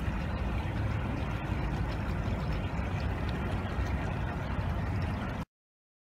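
Steady low outdoor rumble with no distinct events, cutting off abruptly to silence about five and a half seconds in.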